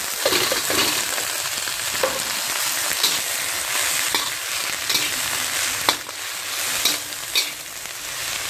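Shredded cabbage sizzling in hot oil in a metal wok as it is stir-fried, with a metal spatula scraping and clicking against the pan every second or so.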